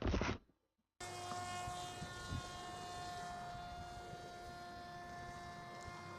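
Parrot Disco fixed-wing drone's electric motor and propeller running at a steady high speed, a constant whine over rushing air, cutting in suddenly about a second in. A brief burst of noise comes just before it.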